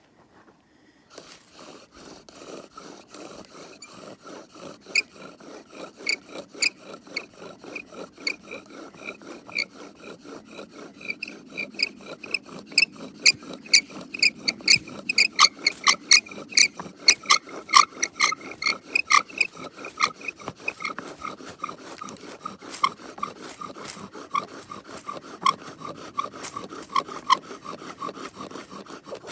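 A hand tool rasping on wood in rapid, even back-and-forth strokes, starting about a second in and growing loudest around the middle before easing off.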